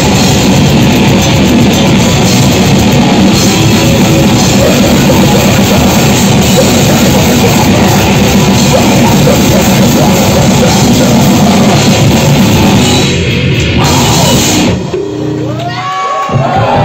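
Grindcore band playing live at full volume: distorted guitar, bass and drums in a dense wall of sound. About 15 seconds in the song cuts off, leaving whining guitar feedback that slides up and down in pitch.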